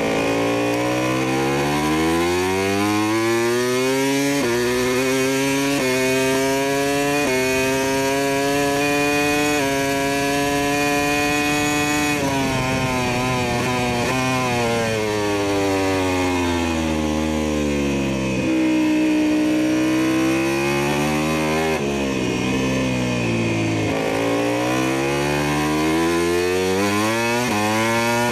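Big motorcycle engine sound effect accelerating through the gears: the pitch climbs, drops at each of three quick shifts in the first several seconds, holds, falls away as it slows, then climbs again in two more pulls near the end.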